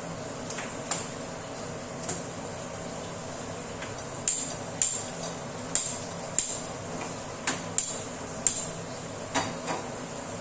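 Gas stove burner being lit: a series of sharp clicks from the igniter, about a dozen, roughly half a second to a second apart, over a steady background hum.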